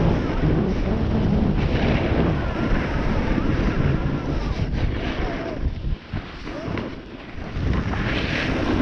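Wind buffeting the microphone of a snowboarder's head-mounted camera on the way down the run, over the hiss of the snowboard sliding and scraping on packed snow. The rush drops away for a second or two past the middle, then returns.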